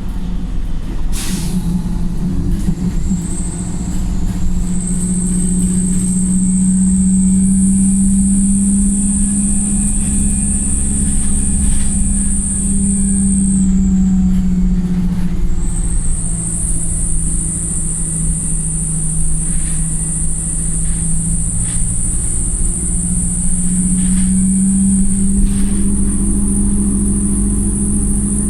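Wright StreetLite single-deck bus heard from inside the saloon, its engine running under way with a steady low drone and a thin high whine that drops out briefly midway and comes back. A brief hiss sounds about a second in.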